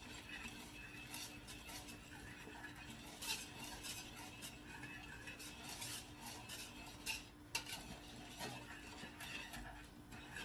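A wire whisk beats a thick egg mixture in a stainless steel pot with a continuous swishing scrape. The wires clink irregularly against the metal sides, with a few sharper knocks about three and seven seconds in.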